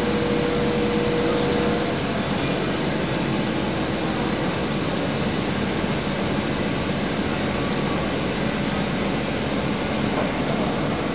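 CNC cutting machine working a 20 mm thick 904L stainless steel baffle plate under a stream of water or coolant, making a steady dense noise. A faint steady tone sounds over it for about the first two seconds.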